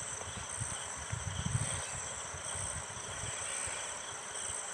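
Crickets chirping steadily in the background, with soft rustling and handling noises as Teflon (PTFE) thread tape is wound onto a plastic pipe fitting.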